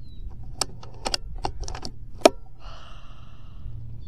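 A run of quick sharp metallic clicks from an Air Venturi Avenger .22 PCP air rifle, its side-lever action being worked between shots, with one much louder sharp click a little over two seconds in, followed by a short hiss.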